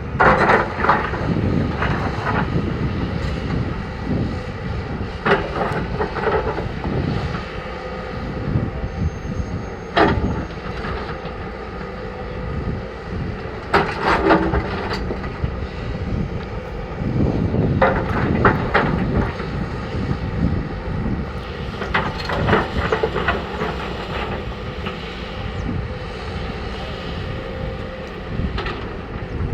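Bulldozer's heavy diesel engine running steadily, with bursts of metallic clanking every few seconds.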